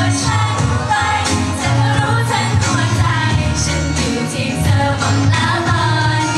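Thai idol pop performed live: a female group singing into handheld microphones over a loud pop backing track with a steady bass line.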